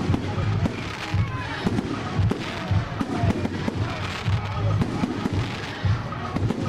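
Fireworks going off in quick succession: aerial shells bursting and crackling with many sharp bangs.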